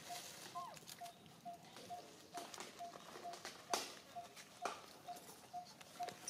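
Quiet outdoor ambience: a short low note repeats steadily about twice a second, with scattered sharp clicks and rustles, the loudest just before 4 s and near 4.7 s.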